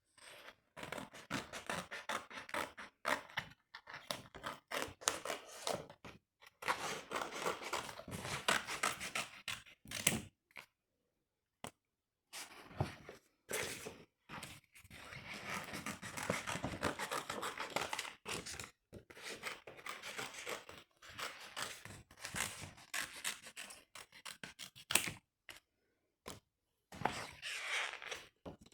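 Scissors cutting through glossy sticker paper in runs of quick, scratchy snips, with brief pauses between runs.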